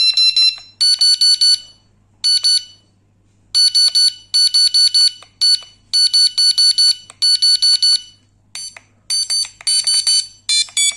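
Electronic carp bite alarm beeping as its buttons are pressed: rapid runs of short, high beeps broken by pauses, with the tone shifting between runs.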